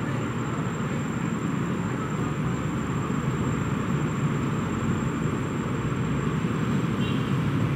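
Steady low mechanical rumble with a constant hiss over it, unchanging through the whole stretch.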